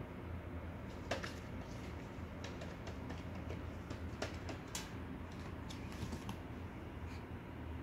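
Irregular light clicks and taps of kittens' claws and paws scrabbling on aluminium drink cans and a hard floor, over a low steady hum.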